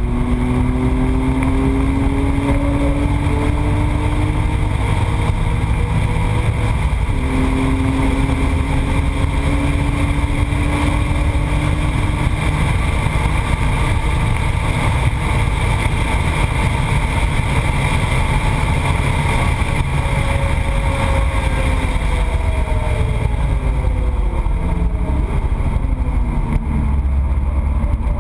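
Car engine and road noise under hard driving. The engine pitch climbs, drops suddenly about seven seconds in as a gear is changed, and climbs again. In the last third it falls away in steps, as if slowing and shifting down.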